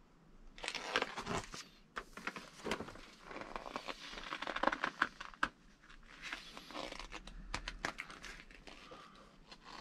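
Crinkling and rustling from RC kit parts bags and paperwork being handled, in repeated bursts with small sharp clicks, starting about half a second in.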